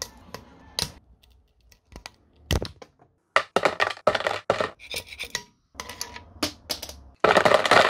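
Small 3D-printed plastic parts snapping and clicking as they are prised off a textured print bed and dropped into a plastic tub: a run of sharp clicks and knocks, with a louder clatter near the end.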